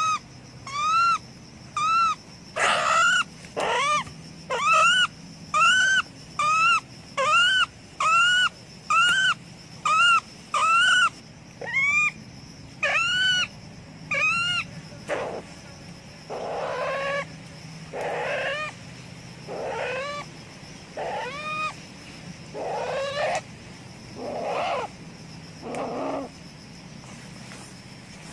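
A ferret-badger caught in a trap calling over and over, each call a high squeal that rises and falls, about one a second. About halfway through, the calls turn lower and harsher and come more slowly, about one every second and a half.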